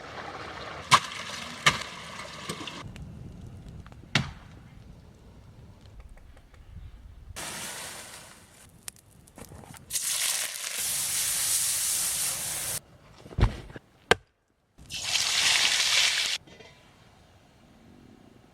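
A run of short, abruptly cut camp sounds: sharp knocks and cracks, such as wood being chopped or split, and three stretches of steady hiss, such as fire or food sizzling.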